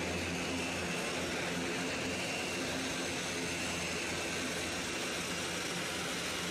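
Airbus A400M's four turboprop engines and eight-bladed propellers running steadily as the aircraft taxis.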